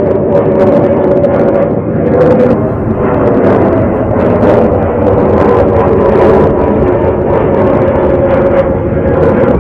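Motorcycle engine running at a steady cruising speed, with wind buffeting the camera's microphone in repeated gusts.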